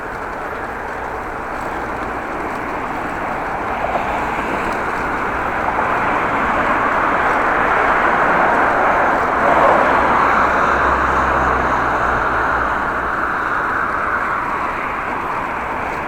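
A motor vehicle passing on the road, its engine and tyre noise swelling to a peak about ten seconds in and then fading, over steady road noise.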